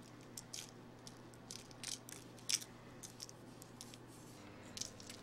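Sugar mixture sprinkled by hand onto orange slices on a parchment-lined baking sheet: faint, irregular light ticks and patters of falling grains. A low steady hum underneath stops about four and a half seconds in.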